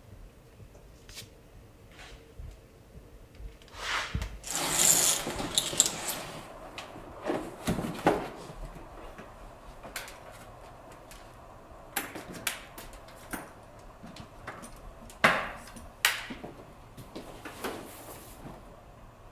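Tools and wooden objects being handled at a cluttered workbench: scattered clicks and knocks, with a longer rustling scrape about four to six seconds in and a few sharper knocks later.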